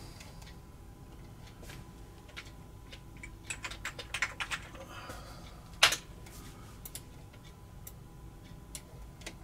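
Typing on an Amiga 1200 keyboard: scattered key clicks, a quick run of keystrokes around the middle, and one louder key press about six seconds in.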